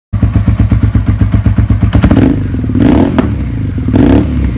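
Suzuki SV650's V-twin engine running on newly changed spark plugs, with a fast even pulse and three short rises in revs about two, three and four seconds in.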